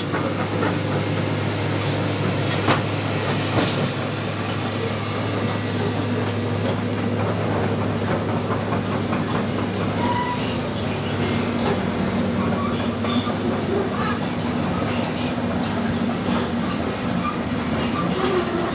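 Excavator engine running steadily, with short high metallic squeaks and clicks from the machine now and then.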